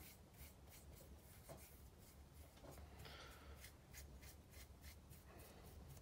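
Faint scratchy strokes of a paintbrush spreading acrylic paint over a plywood board, repeated over and over.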